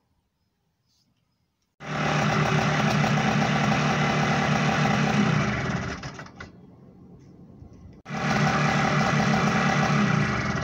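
Trials motorcycle engine running, then cut by a stop switch about six seconds in and dying away. A couple of seconds later it runs again and is cut once more at the end. This is a test of the original stop button and a newly wired magnetic safety kill switch, and both stop the engine.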